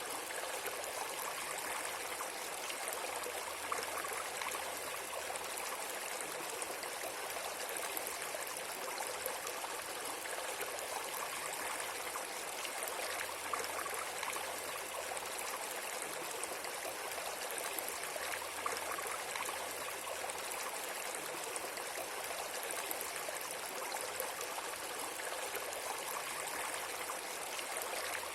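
Steady, even rushing noise of running water, like a stream, unchanging throughout.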